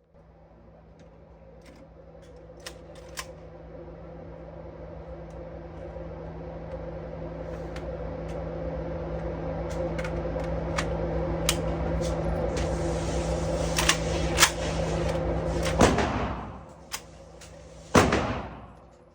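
A steady hum that grows louder, with scattered sharp cracks of gunshots. The hum cuts off suddenly a few seconds before the end, and a loud crack follows about two seconds later.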